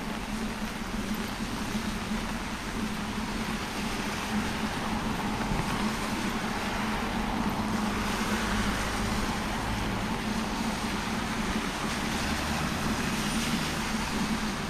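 Road traffic on rain-wet asphalt: tyre hiss from passing cars, swelling past the middle, over a steady low hum.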